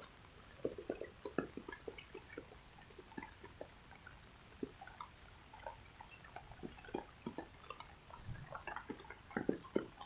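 Rainwater dripping: irregular drops and splats, some in quick clusters, over a faint steady rain hiss.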